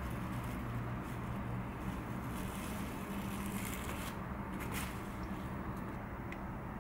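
Light rustling and scraping of hands handling rice-covered nori on a bamboo rolling mat, with a few brief ticks, over a steady low hum.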